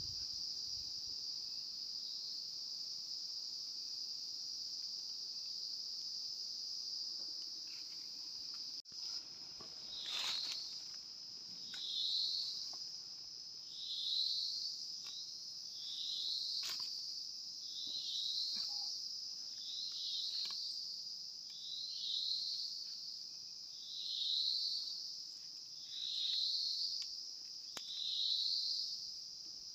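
A steady high-pitched drone of forest insects. From about a third of the way in, a short rising call repeats roughly every two seconds, and there are a few sharp snaps.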